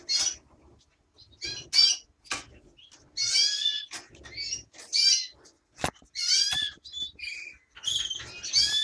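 Caged finch chirping: a string of short, high chirps in quick bursts with brief pauses between them, and one sharp tap about six seconds in.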